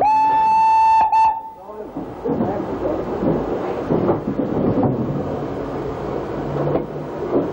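Whistle of the ex-LB&SCR A1X 'Terrier' 0-6-0 tank engine No. 32670: one steady high blast of about a second, with a short second toot right after it. This is the loudest sound. Then comes the engine's steam exhaust, uneven chuffs and hissing as it moves slowly along.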